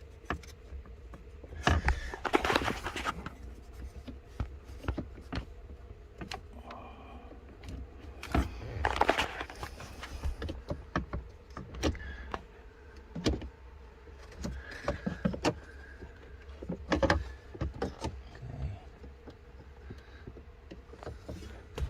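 Scattered clicks, knocks and rattles of hands working a blend door actuator and its plastic fittings in a truck dashboard, with two longer rustling bursts about two seconds and nine seconds in.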